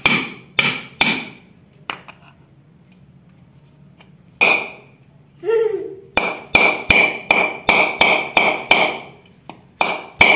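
Hammer blows on a coconut: a few strikes on a screwdriver set against the shell, then after a pause a quick run of about eight blows, roughly three a second, straight onto the shell of the coconut held in the hand, each with a short ring.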